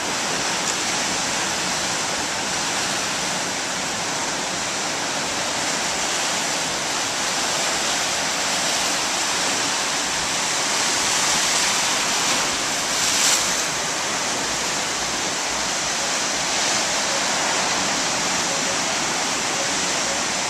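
Ocean surf washing and breaking in the shallows: a steady hiss of foaming water, with one brief louder rush about thirteen seconds in.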